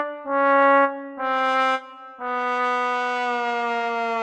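Comic 'sad trombone' sound effect, 'wah-wah-wah-waaah': short brass notes each a step lower, then a long final note from about two seconds in that sags downward in pitch.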